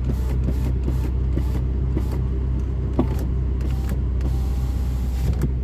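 Mk6.5 Jetta driver's power window motor running as the new switch is tested, over a steady low hum, with a sharp click about three seconds in. The auto up/down still doesn't work: the fault is not the switch, and the owner takes it for a failing window regulator.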